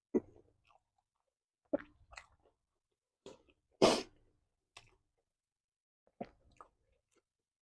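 Close-miked chewing of jumbo pempek, a chewy Palembang fish cake: a series of short separate mouth sounds about a second apart, the loudest about halfway through.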